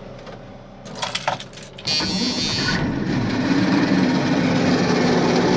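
John Deere combine's engine cranking and catching at once, about two seconds in, then running steadily and building a little louder. It starts readily ("cranks like a top"). A few light clicks come before it.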